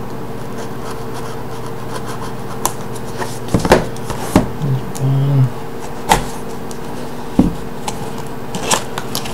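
Sealed cardboard box being cut open with a knife and handled on a wooden desk: scattered clicks and scrapes with a few sharp knocks, over a steady electrical hum.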